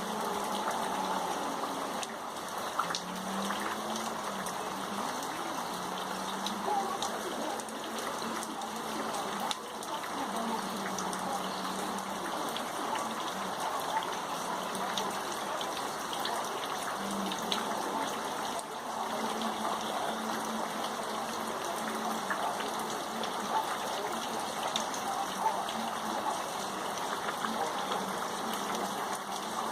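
Steady rain falling, a continuous patter with scattered sharper drops.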